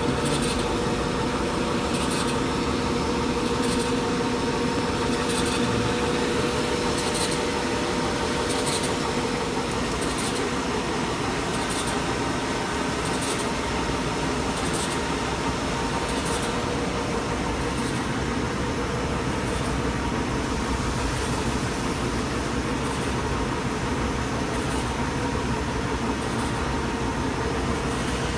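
Grindingmaster 900-series deburring and grinding machine running steadily, a continuous machine hum and grinding noise with a short high hiss recurring about once a second.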